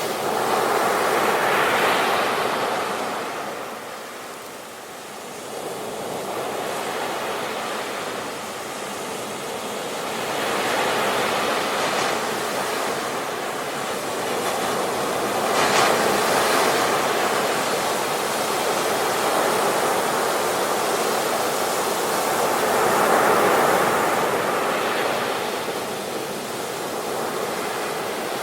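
Sea waves breaking on the shore, a steady wash of surf that swells and falls as each wave comes in, loudest about 2, 16 and 23 seconds in.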